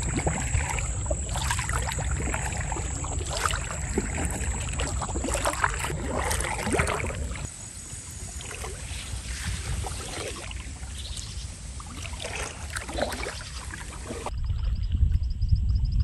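Kayak paddle dipping and splashing in the water, with drips running off the blade and wind rumbling on the microphone. A little before the end it gives way to a quieter, wind-blown scene with a quick run of faint, evenly spaced high chirps.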